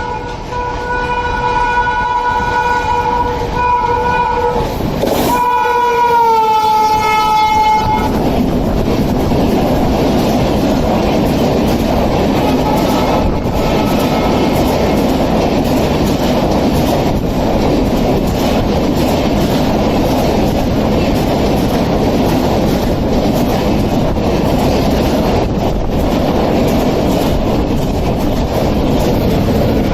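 Indian electric locomotive's horn sounding long and steady, with a brief break, then dropping in pitch as the locomotive passes and cutting off about eight seconds in. The steady rumble and wheel clatter of the train's coaches running past follows.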